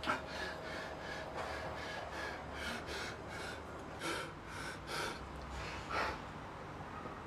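A man breathing hard and fast, short rasping breaths about three times a second.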